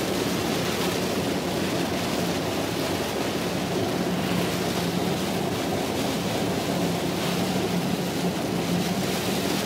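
Heavy rain and road noise inside a moving car's cabin: a steady wash of noise with a low, even drone underneath.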